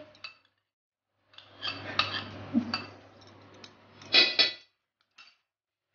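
A metal spoon scraping and clinking against a stainless-steel bowl as whipping cream is scraped out and stirred in. There is a louder clatter about four seconds in.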